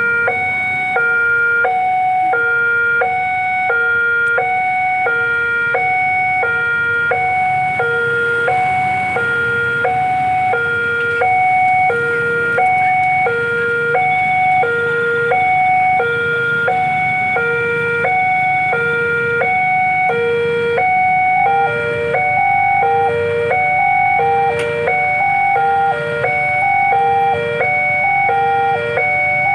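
Railway level-crossing warning alarm sounding: an electronic two-tone signal switching steadily between a high and a low pitch about once a second, warning that a train is approaching. Past the middle a second alarm joins slightly out of step, with a low rumble underneath.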